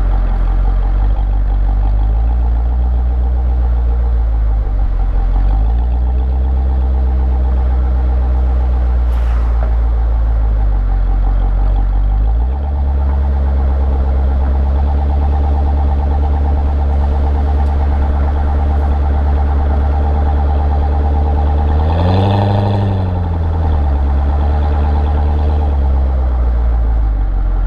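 Chevrolet Corvette C6's V8 engine running under way, a steady deep exhaust note whose pitch shifts several times, with a short rise and fall in revs near the end.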